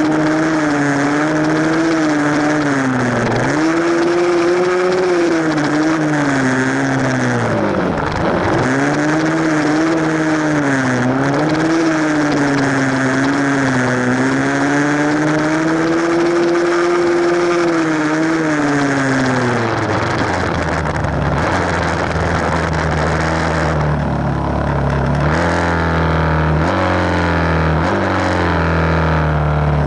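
Small four-stroke single-cylinder dirt bike engine being ridden, its note rising and falling with the throttle and dropping sharply twice. After about twenty seconds it settles to a lower, steadier note, running slowly near idle.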